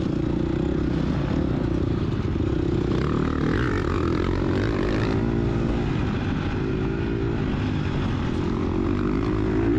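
250 cc four-stroke single-cylinder engine of a 2022 GasGas EX250F dirt bike running at low trail speed, the revs rising and falling a few seconds in.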